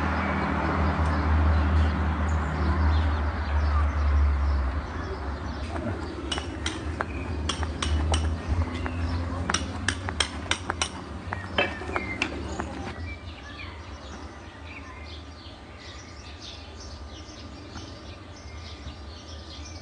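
A low rumble for the first few seconds, then a run of sharp, irregular clicks and clinks for several seconds, falling to a quieter background after that.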